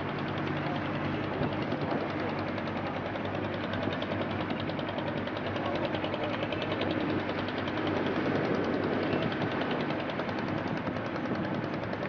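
Boat engine running steadily with a rapid, even knocking rhythm over a constant rushing noise.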